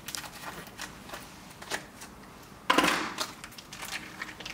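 Small clear plastic parts bag and paper sheets crinkling and rustling as hands handle a resistor and capacitor, with scattered small clicks and a louder rustle a little over halfway through.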